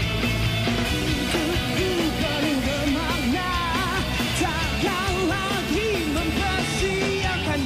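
Rock band playing with a male lead vocal singing a wavering melody over guitars and drums.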